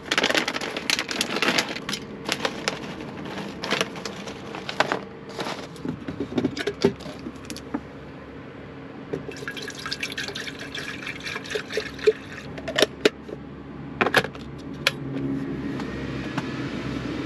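Foil-lined dehydrated-meal pouch crinkling as it is torn open, then water glugging from a plastic bottle into a stainless electric kettle. A few sharp clicks follow, and near the end a steady rising hiss as the kettle begins to heat.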